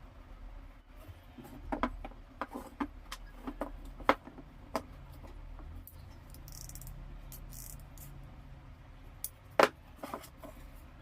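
Scattered clicks and knocks of small hard parts being handled and set down, with two sharper knocks, one about four seconds in and the loudest near the end.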